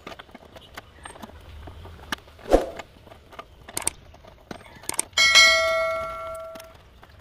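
Small clicks and knocks from hands handling a nut and bolt on a plastic washer fluid tank, with one louder knock about two and a half seconds in. About five seconds in, a bell-chime sound effect from a subscribe-button animation rings out and fades away over about a second and a half.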